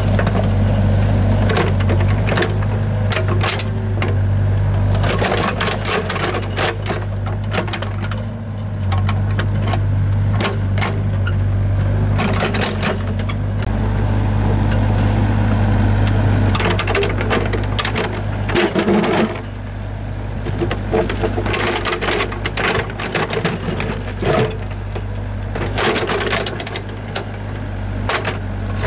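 Excavator engine running steadily under load, with irregular knocks and clatter throughout.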